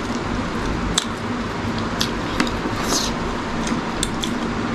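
Close-up mouth sounds of eating: a few short, wet clicks and smacks from chewing, over a steady low background hum.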